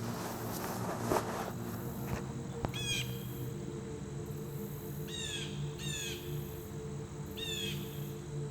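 A bird calling with short, downward-sweeping chirps, about five times at uneven intervals, over a low steady hum. A few faint knocks come in the first three seconds.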